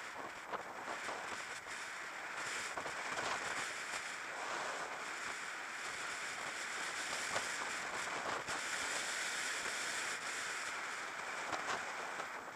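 Steady rush of wind over the microphone of a camera riding on a moving road bike, with road noise and a few light clicks and crackles.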